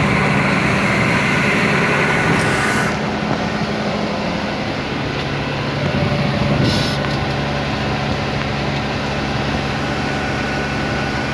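A heavy farm machine's engine running steadily. A little under three seconds in, a hissing layer of noise cuts off and the engine note drops slightly. There is a short hiss near seven seconds.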